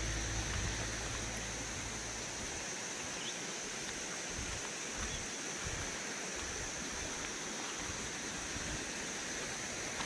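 Outdoor riverside ambience: a steady hiss with a constant high-pitched drone. A low rumble fades out over the first two seconds.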